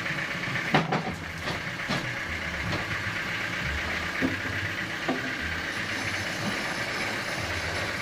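Sawmill machinery running steadily with a low pulsing hum, while a heavy log is shoved onto the saw carriage, giving a few short knocks, the loudest about a second in.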